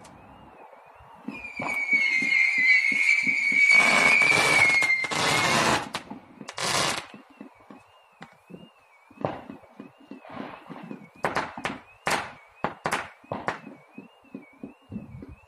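Fireworks going off. A whistling firework screams for about four seconds, falling slightly in pitch, over crackling, then loud bursts follow. Later comes a quick string of sharp bangs and crackles. A faint warbling tone rises and falls steadily in the background.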